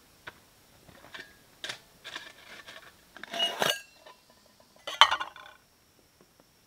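Titanium camp cookware being set out on a rock: a string of light metal knocks and clinks, with the loudest clanks about three and a half and five seconds in, some ringing briefly.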